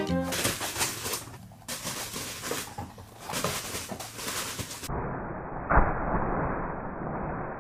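Plastic bubble wrap crinkling and crackling with rapid small pops as a Pomeranian walks and scampers over it. About five seconds in the crackle turns duller, with one sharp, louder pop or thump.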